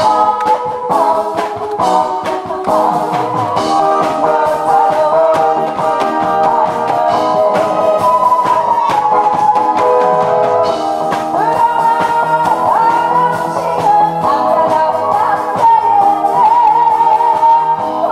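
A woman singing a song into a microphone over instrumental backing music.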